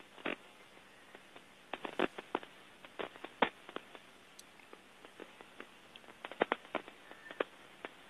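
Rain on an Instagram Live phone stream: scattered drops tapping irregularly close to the microphone, in small bunches about two seconds in and again in the last third, over a faint steady hiss.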